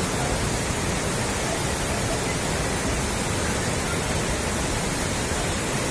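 Muddy floodwater flowing fast over a road, a steady even rush of water noise.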